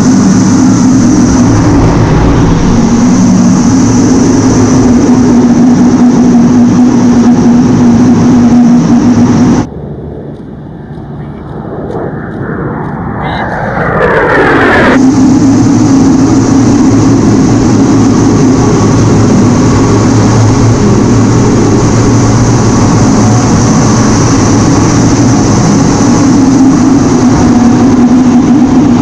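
Steady, loud cockpit noise of an A-10C Thunderbolt II's twin TF34 turbofans and rushing air, with a steady high whine and a low hum. Around ten seconds in it gives way to the quieter jet noise of an A-10 passing overhead as heard from the ground, swelling over a few seconds. About fifteen seconds in, the steady cockpit noise comes back.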